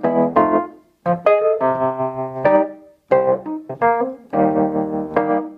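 Wurlitzer 200A electric piano, its hammer-struck steel reeds, played in chords that ring and die away, with two brief gaps between phrases.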